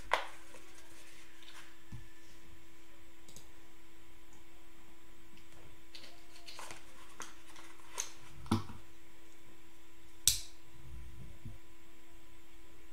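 Steady low electrical hum with a few short, sharp clicks or knocks: one right at the start and three more in the last few seconds, the last the sharpest.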